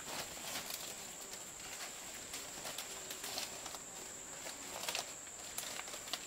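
Steady high-pitched insect drone, with scattered light clicks and taps over it.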